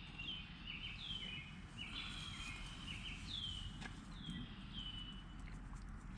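Songbirds calling: a string of short chirps, each dropping in pitch and then levelling off, about two a second, over a faint steady background.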